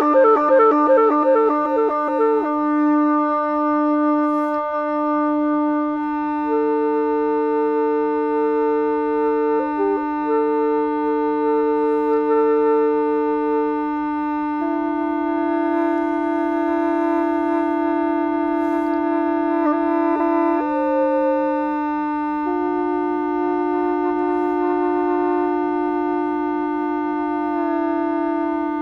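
Hulusi, the Chinese calabash gourd flute, playing a slow melody of long held notes over a steady higher drone. The first two seconds hold a quick fluttering trill.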